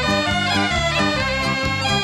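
Background music: a bagpipe folk tune with a quick-moving melody of many short notes, playing steadily throughout.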